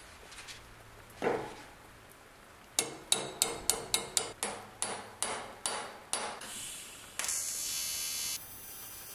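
Ball-peen hammer striking the thin metal wing of a scale model plane laid on a wooden block: one blow about a second in, then about a dozen quick ringing blows, roughly three a second, to flatten the damaged wing. Near the end, a TIG welding arc hisses for about a second.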